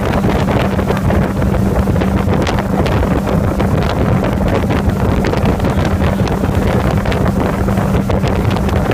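Wind buffeting the microphone over the steady drone of a motorboat's engine running at speed while towing a barefoot water-skier.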